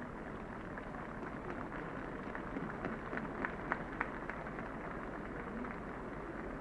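Steady, muffled noise of a large crowd in an open square on an old recording, with a short run of scattered claps a few seconds in.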